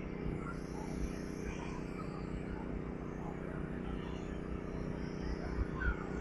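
Steady low outdoor background hum with faint, distant voices and no sound close by.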